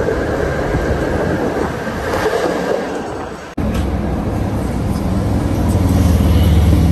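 Vintage PCC electric streetcar running on its rails, a steady rumble heard from aboard the car. After a sudden cut about three and a half seconds in, a PCC streetcar rolls past close by in street traffic, its low rumble growing louder and loudest near the end.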